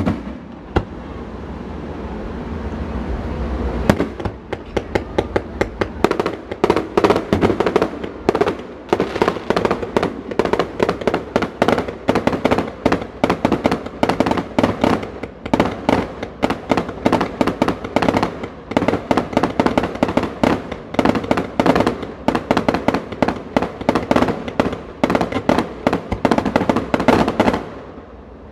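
Fireworks display: a low rumble for about four seconds, then a long, rapid string of firework bangs and crackles, several a second, that stops about a second before the end.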